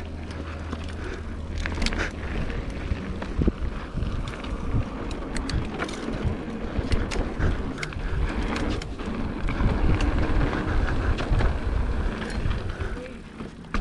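Mountain bike rolling along a dirt trail: wind buffeting the camera's microphone over a low rumble, with frequent sharp clicks and rattles from the bike.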